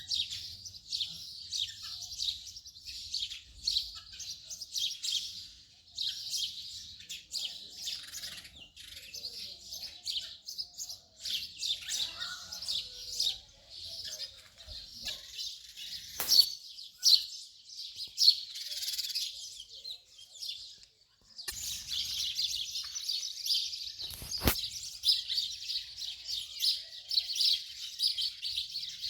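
House sparrow chirping in quick, continuous runs of short notes, with a brief pause about two-thirds of the way through. Two sharp clicks stand out, one a little past halfway and one a few seconds later.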